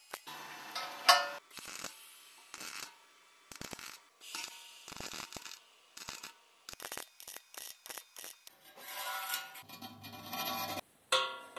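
MIG welding arc on sheet steel, crackling and buzzing in short, uneven bursts as the bead is laid, with brief gaps between runs.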